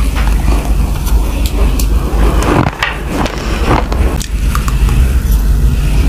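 Close-miked crunching of raw, uncooked rice grains being chewed in the mouth: a steady, gritty crackle broken by many sharp little cracks as the hard grains break between the teeth.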